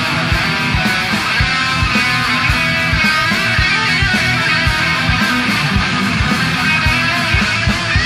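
Background music: a guitar-led track with a steady, regular drum beat.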